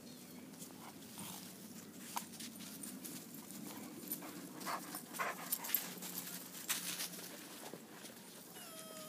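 English shepherd dogs and puppies play-fighting in snow: scuffling and snow-crunching with a few short yips. Near the end a puppy whines once, falling in pitch.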